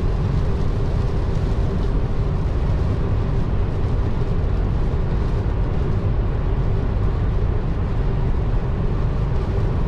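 Steady road and wind noise of a car driving at highway speed: a deep, even rumble with a faint steady hum above it.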